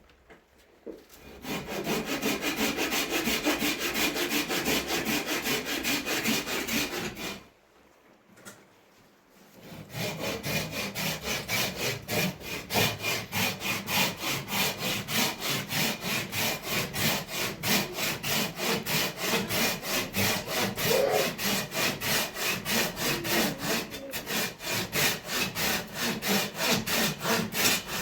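Fast, even rasping strokes in two long runs, broken by a pause of about two seconds some seven seconds in.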